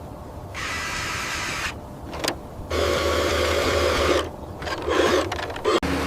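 A small motor running with a steady whirring hum, in several short stretches that start and stop abruptly.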